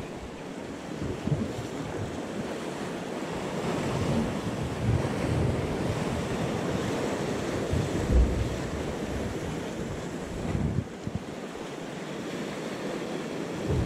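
Sea waves washing and splashing against concrete breakwater blocks, with wind buffeting the microphone in low rumbling gusts now and then.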